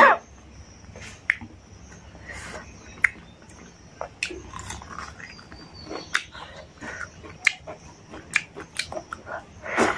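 Eating sounds from a person biting and chewing a raw akbare chilli, then working rice by hand. Sharp mouth clicks and smacks are scattered irregularly throughout, with a louder burst near the end.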